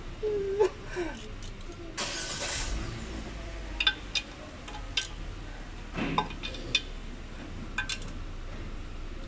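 Scattered metal clicks and clinks of a hand tool on the bolts of a Chevrolet Spark's CVT transmission filter as it is fastened in place, with a short hiss about two seconds in.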